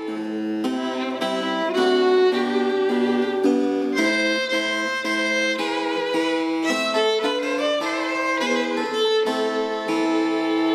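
Violin and spinet playing a duet: a bowed violin melody, with vibrato on the held notes, over the spinet's plucked chords.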